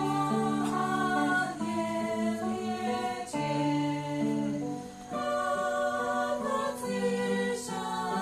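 A small group singing a gospel hymn in harmony, with guitar accompaniment; the voices hold each note and move together through the melody.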